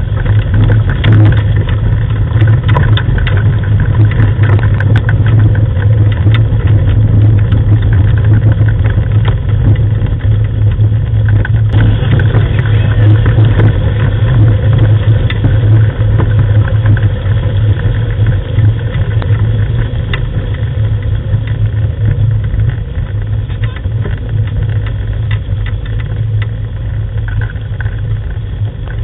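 Wheeled dog-team rig rolling along a gravel track: a steady, loud, low engine-like drone with a scatter of crackles and small knocks from the wheels and paws on gravel.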